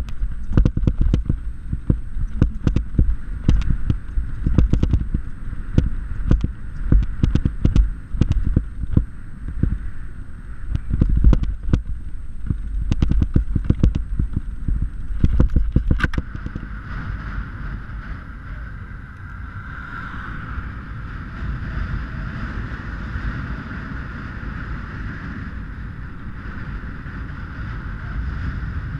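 A mountain bike and its GoPro camera rattle and knock as they jolt over a rough forest trail, with a heavy rumble of wind buffeting the microphone. About sixteen seconds in, the knocking stops and gives way to a steadier, quieter rush of wind and rolling noise as the bike rides on smooth paved road.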